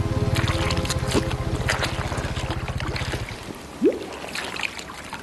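Water splashing and sloshing in a toilet bowl as a hand rummages in it, with scattered short splashes. A low, rapid throbbing runs underneath and stops about three seconds in, and there is a brief rising squeak shortly after.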